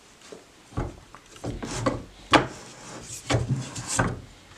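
Wooden handle of a plywood woodworker's vise being turned, sliding and knocking in the iron pipe tee on the vise screw: an uneven run of wooden knocks and short scrapes, the loudest about two and a half seconds in.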